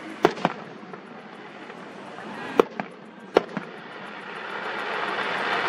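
Aerial fireworks bursting: three sharp bangs, each followed by a weaker echoing bang, over a steady noisy wash that grows louder near the end.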